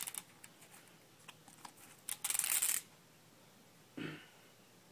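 Clear plastic protective film being peeled off a new laptop keyboard: a crackly rustle lasting under a second about two seconds in, with a few faint crackles before it and a short duller rustle near the end.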